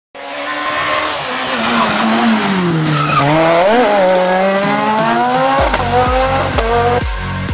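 Peugeot 207 S2000 rally car's two-litre four-cylinder engine: revs falling as it slows for a hairpin, then climbing hard through the gears as it accelerates away. Electronic music with a heavy beat comes in about five and a half seconds in.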